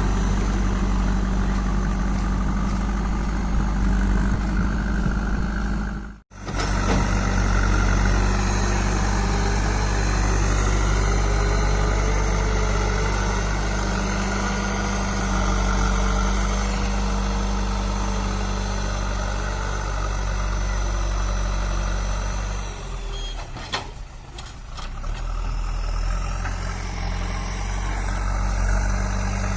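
JCB 3DX backhoe loader's diesel engine running steadily while it works. There is a brief cut-out about six seconds in and a dip in level for a couple of seconds about three-quarters of the way through.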